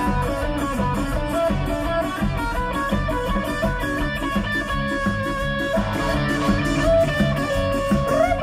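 Rock band playing live through a PA: an instrumental passage led by electric guitar over a steady drum beat, with no singing.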